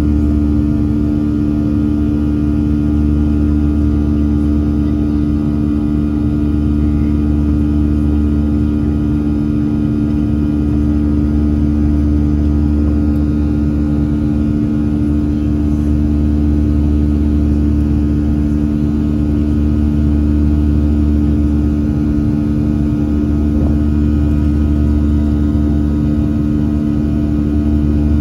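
Cabin noise of a Boeing 737-700 in the climb after takeoff: its CFM56-7B turbofan engines and the airflow make a steady, loud drone with a deep rumble and a constant hum.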